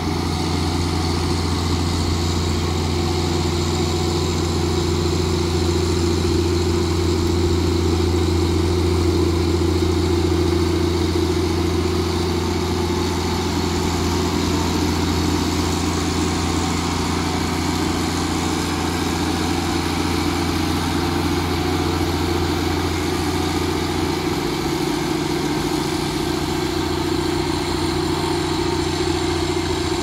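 Heavy road-construction machine's diesel engine running steadily, its low note easing slightly about 24 seconds in.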